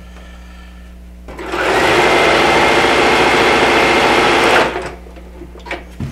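Bernina domestic sewing machine stitching a straight seam through quilt blocks: it starts about a second in, speeds up quickly, runs at a steady speed for about three seconds, then stops.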